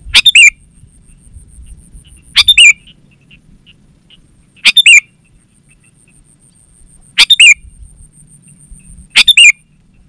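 Sooty-headed bulbul (kutilang) calling: five short, loud phrases of two or three quick notes each, about every two and a half seconds.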